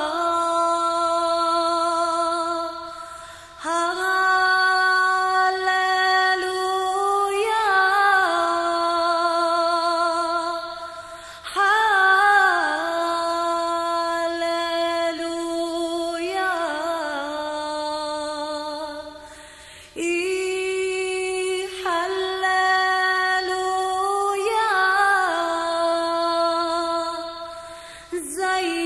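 A woman singing an Assyrian hymn solo and unaccompanied, in slow phrases of long held notes with vibrato and ornamented turns, pausing briefly for breath every eight seconds or so.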